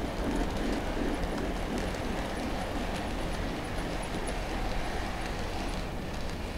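Model trains running on the track: a steady rumble of wheels and motors, with light clicking from the cars rolling over the rails.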